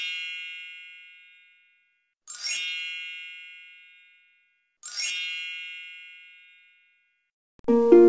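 A bright bell-like chime rings three times, about two and a half seconds apart, each strike fading away. Near the end, plucked-string music begins.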